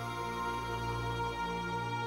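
Slow background music of long held chords over a steady low bass note; the bass note changes about one and a half seconds in.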